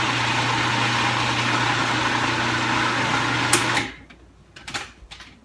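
Countertop blender motor running at one steady speed with a low hum, chopping onion into avocado mash for guacamole. It cuts off suddenly about four seconds in, with a click just before it stops.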